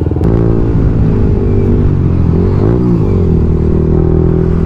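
Motorcycle engine running under way, a steady note; about two and a half seconds in the revs briefly rise and fall again.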